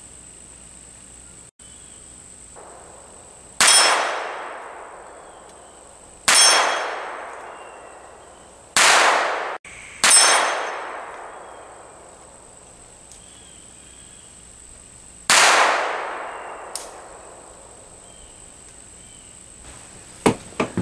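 Steel gong target struck by .22 LR bullets from a Phoenix Arms HP22A pistol: five sharp metallic clangs a few seconds apart, each ringing down over a second or two.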